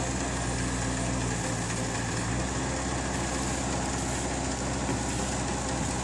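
Small engine of a mini loader running steadily, driving a mini concrete mixer bucket attachment while concrete is emptied from it.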